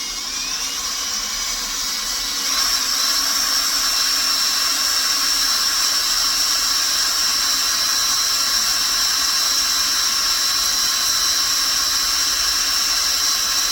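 Hand-held electric drill boring a hole into the cast iron body of a Sieg X2 mini mill, its motor whining steadily at high pitch; it gets louder about two and a half seconds in and holds there.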